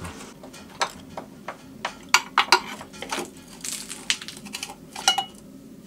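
Hand tools and loose metal parts clinking and tapping during engine disassembly: a run of irregular sharp metallic clicks and knocks, with a short high ringing note near the end.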